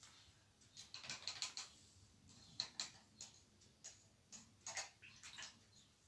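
Faint, irregular light clicks and taps of small hard objects being handled, with a loose cluster of them about a second in and more scattered through the rest.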